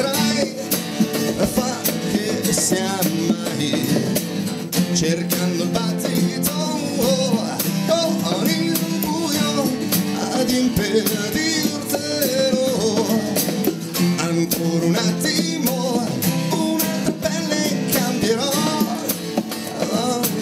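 Live acoustic band playing a rock song: acoustic guitars strumming over an acoustic bass guitar, with drums and cymbals.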